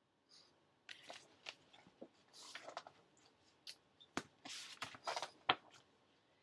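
Soft rustles and scattered light clicks of a picture book being handled and its pages turned, with two short rustling patches about two and a half and four and a half seconds in.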